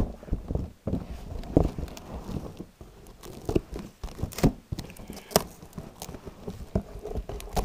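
Cardboard parcel being opened by hand: irregular rustling and tearing, with sharp knocks and clicks, the loudest about four and a half and five and a half seconds in.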